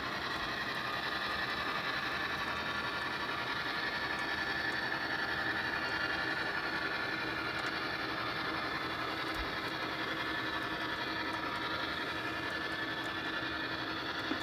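HO-scale Athearn Genesis FP7 model diesel locomotive, battery powered, running steadily along the layout track with its train: a steady hum with a thin high whine.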